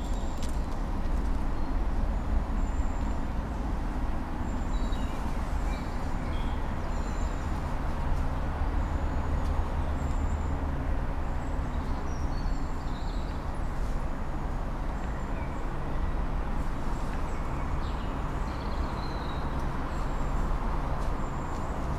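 Small woodland birds chirping in short, high calls, scattered throughout, over a steady low rumble.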